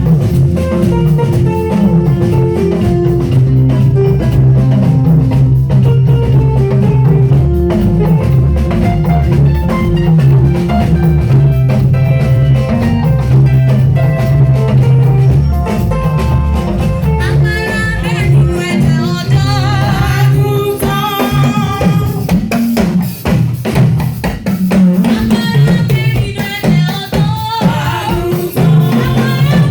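Live praise-band music with a drum kit and steady bass line; voices singing come in more clearly about two-thirds of the way through.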